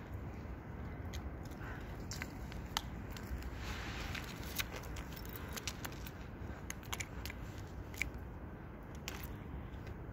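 Thin ice on a frozen puddle crackling and crunching under a wire fox terrier as it rolls and wriggles on it, a string of irregular sharp cracks and clicks.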